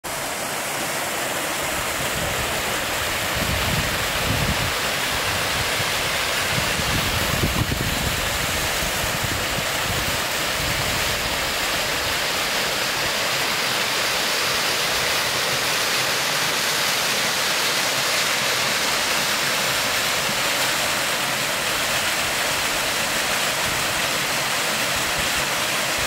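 Steady rushing of a small waterfall cascading over rock, with a few brief low rumbles in the first half.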